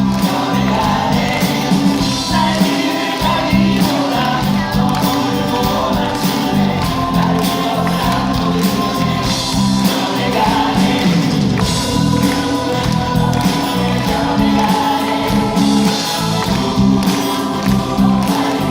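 Live musical-theatre number: several voices singing together over a band accompaniment with a steady beat.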